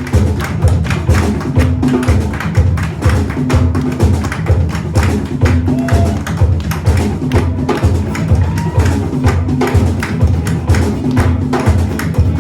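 Live band playing an instrumental passage with a steady beat, bass and percussion strong, no singing.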